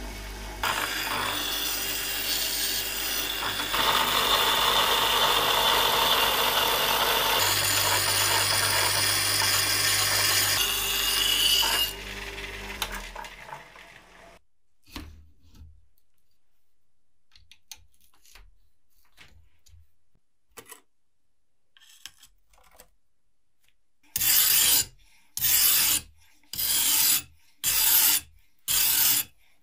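An electric power tool with a low motor hum runs steadily for about twelve seconds, then winds down. After a quiet stretch with a few small knocks, hand filing begins near the end: about seven regular back-and-forth strokes in five seconds.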